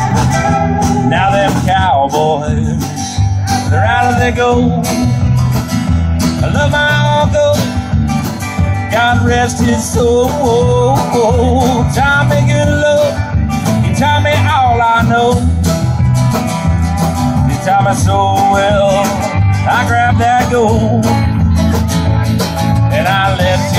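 Live country band playing an instrumental break: strummed acoustic guitar, electric guitar, mandolin and drums, with a bending lead melody over a steady bass line.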